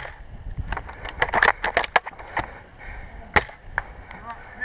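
Irregular sharp cracks and snaps, bunched together about a second in, then one loud crack past three seconds and a few fainter ones near the end.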